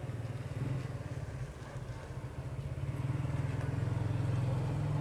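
An engine running steadily with a low, rapidly pulsing hum that dips briefly and then grows louder from about three seconds in.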